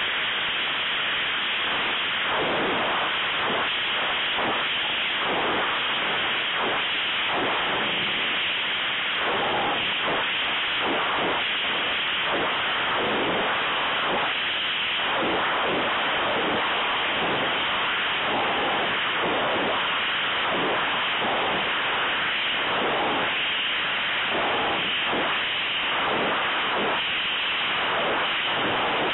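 Steady rushing wind noise on a model rocket's onboard camera microphone as the airframe descends, swelling and easing in uneven gusts.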